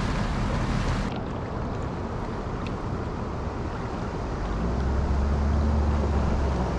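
Wind buffeting the microphone over river water moving around a drift boat. A low steady hum joins for about a second and a half past the middle.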